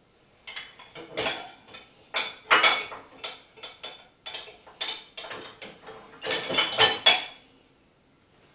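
Dishes being loaded into a dishwasher's lower rack: plates and bowls clinking against each other and the rack in a quick run of clinks and knocks, loudest near the end, stopping about a second before the end.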